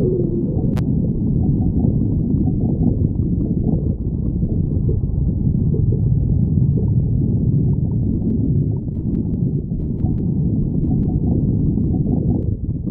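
Human stomach growling: a continuous low rumbling and gurgling from the belly.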